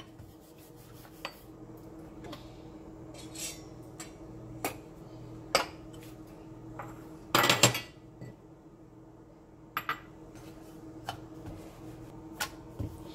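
Wooden rolling pin knocking and clacking on a metal plate as paratha dough is rolled out, roughly one knock a second, with one louder metal clatter about halfway through. A steady low hum runs underneath.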